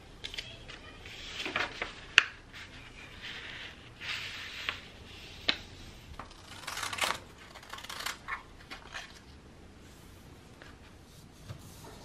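A sheet of thin paper being slid, folded and creased by hand on a tabletop: short bouts of rustling and crinkling with scattered sharp taps, the loudest a single click about two seconds in. The handling grows quieter over the last few seconds.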